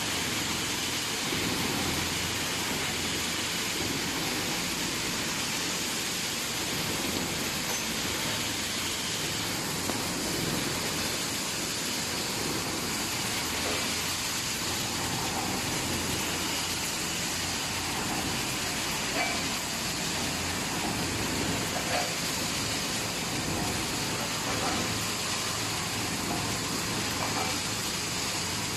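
Automatic steel wire mesh welding machine running, fed with wire from coils: a steady mechanical noise with a few faint clicks in the second half.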